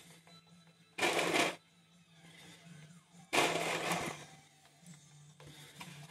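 Shelled pistachios rattling against a plate as they are picked up and scattered over cake batter, in two short bursts about a second in and three and a half seconds in, with a weaker one near the end. A steady low hum runs underneath.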